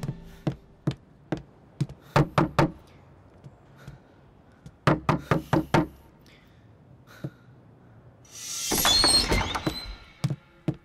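Knocking on a wooden door: a few spaced knocks, then two quick runs of four or five knocks. A louder burst of noise follows near the end.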